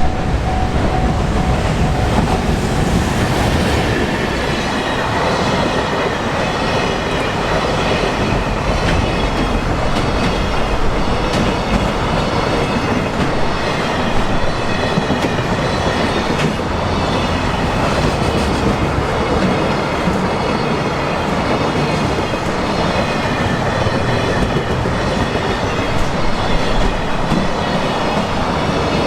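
A long freight train rolling steadily over a level crossing: a continuous rumble of wheels on rail with regular clickety-clack over the rail joints and some high wheel squeal. A repeating crossing warning bell can be heard in the first few seconds before the train noise covers it.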